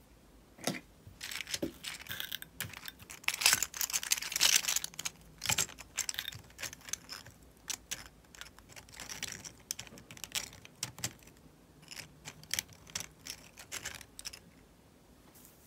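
Clicking and clacking of a 3D-printed plastic flexible person toy as its hinged joints are bent and moved by hand, with a dense run of rapid clacks about three to five seconds in.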